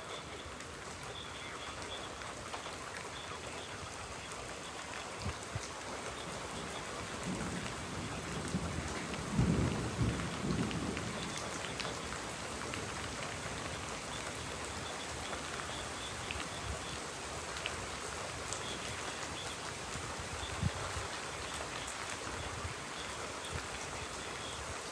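Steady rain falling during a thunderstorm, with scattered sharper drop hits. A low rumble of thunder swells about a third of the way in and fades a few seconds later.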